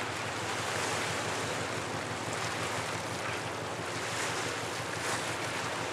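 Steady rushing of wind and river water, with wind buffeting the microphone.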